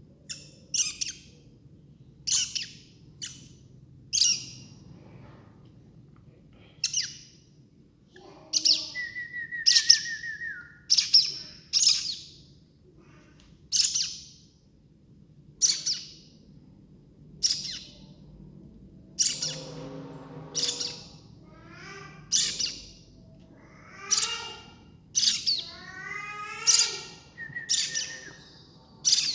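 Baby birds chirping: short, sharp, high calls repeated every second or two, with a few longer, harsher calls and a brief steady whistle mixed in.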